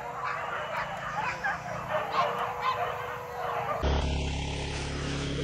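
A pack of hunting dogs barking and yelping in quick, overlapping calls. About four seconds in, the sound cuts abruptly to a steady low hum.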